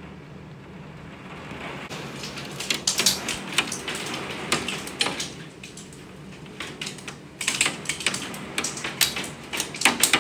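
Hailstones pelting the window glass in a dense, irregular clatter of sharp clicks, beginning about two seconds in over a steady rain hiss. The clatter eases for a couple of seconds in the middle, then picks up again.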